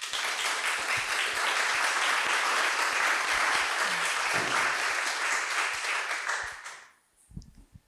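Audience applauding, starting at once and dying away about seven seconds in.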